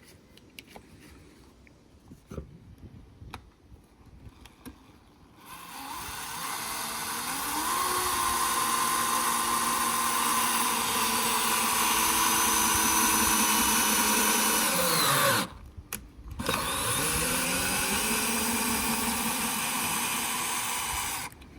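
Bosch PSR 14.4 cordless screwdriver, fitted with a replacement motor, running free. It winds up about five seconds in and runs steadily with a whine for about ten seconds, winds down, then runs again for about five seconds until near the end. The repaired motor is working.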